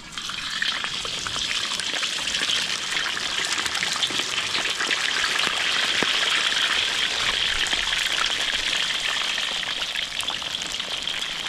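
Whole seasoned fish deep-frying in hot oil in a steel wok: a steady sizzle full of crackling and popping. It starts as the first fish goes into the oil, and it runs on while more fish are added.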